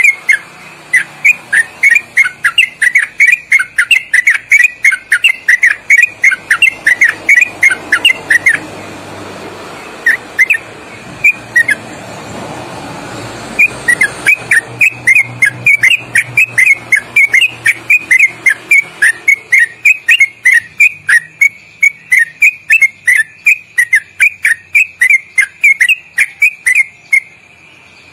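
Yellow-vented bulbul (trucuk) singing a long, loud 'ropelan': a rapid run of short whistled notes, about five a second. The run breaks off for a few seconds in the middle, where a low rumble rises underneath, then starts again and carries on almost to the end.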